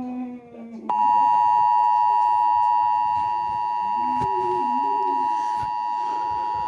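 Emergency Alert System attention signal: a steady two-tone electronic alarm, the two pitches close together near 1 kHz, starting sharply about a second in and holding unbroken.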